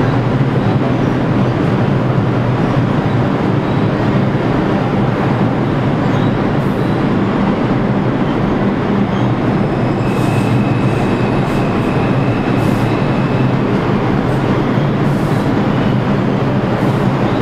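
R142 subway train running through the station at speed without stopping, a steady loud rumble of wheels on rail. A faint high whine comes in for a few seconds past the middle.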